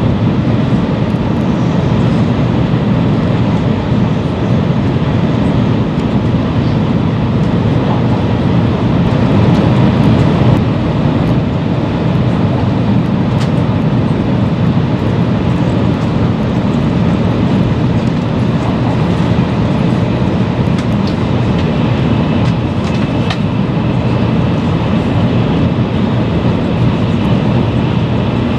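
Running noise heard inside a Taiwan High Speed Rail 700T train at speed, a Shinkansen-type sound: a steady, deep rumble of wheels on rail and air rushing past the car.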